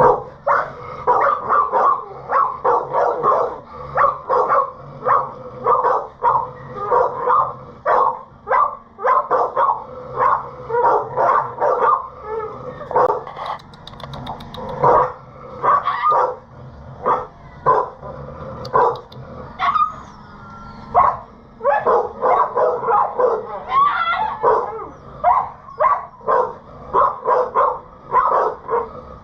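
Dogs barking and yipping in rapid, almost continuous short barks, several a second, with a couple of brief lulls.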